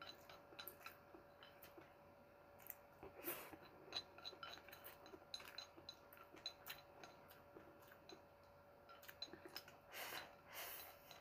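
Faint eating sounds: chopsticks clicking and scraping on a ceramic plate, and noodles being chewed, with a few longer noisy sips near the end as the plate is tipped to the mouth.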